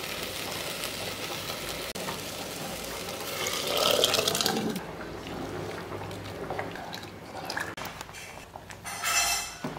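Drumstick leaves sizzling in hot oil in a pot, then cooked dal poured in about three and a half seconds in, a loud wet splashing pour that lasts about a second and a half. After that the pot goes quieter, with small scattered pops and ticks as the sambar starts to cook.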